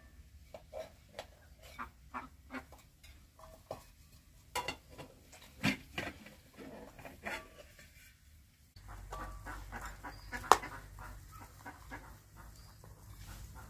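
Metal ladle scraping and clinking against a metal pot and tray as steamed rice is served out, then a spatula knocking and scraping on a metal tray while cutting the crisp tahdig crust, with one sharp clink about three-quarters of the way through.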